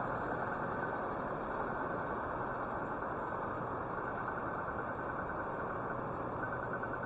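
Steady city street traffic noise: a continuous hum of vehicle engines and tyres, with no single event standing out.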